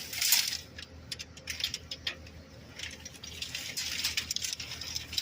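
Discarded items being rummaged through by hand: rustling with scattered clicks and clinks of hard objects knocking together, loudest just after the start and again in the second half.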